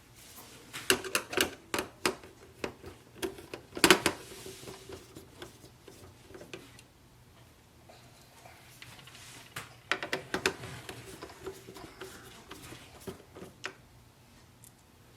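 Screwdriver and fingers working the small screws and plastic parts that hold an Epson EcoTank ET-2720 printhead: rapid clicks and rattles in two bursts, about a second in and again about ten seconds in, with quieter handling between.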